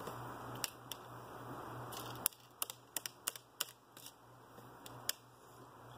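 Light clicks and taps as a stripped copper wire is handled and its strands twisted by hand at a desk, several in quick succession between about two and four seconds in. Under them is a faint steady hum and hiss that stops suddenly a little over two seconds in.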